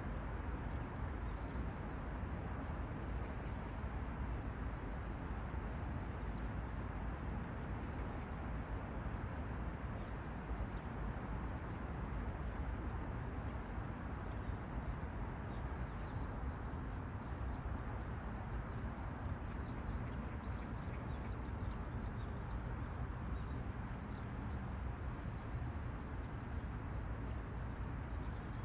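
Steady outdoor background noise, a low even rumble, with faint short high chirps of small birds scattered through it.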